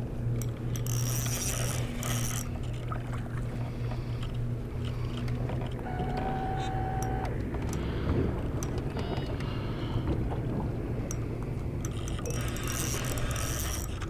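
A steady low hum at a constant pitch, with scattered clicks and rattles of a spinning reel being worked while a hooked fish, which the angler takes for a carp, pulls on light 4 lb line.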